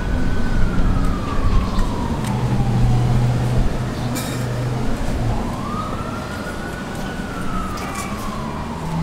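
A wailing emergency-vehicle siren, slowly rising and falling in pitch twice, over a low steady hum.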